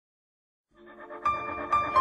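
Music begins after a short silence, fading in under a second in: a melody of high held notes over a low bass, with a sharper note entry just past a second.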